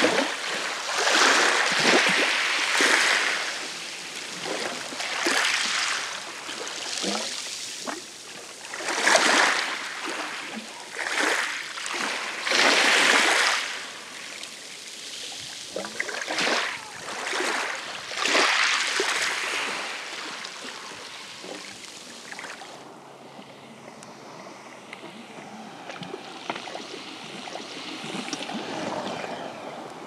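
Small sea waves breaking and washing up a pebble beach, a surge every one to three seconds with water rushing over the stones. About three quarters of the way through, this gives way to a quieter, steadier wash of calm water.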